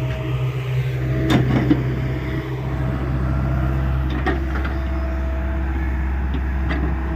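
Hyundai 85A mini excavator's diesel engine running steadily under work, with a few sharp knocks and clanks from the digging.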